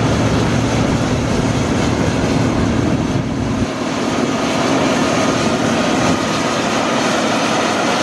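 John Deere combine harvester running close by as it cuts and threshes soybeans: a loud, steady drone with a faint steady whine over it. The deepest part of the rumble drops away partway through.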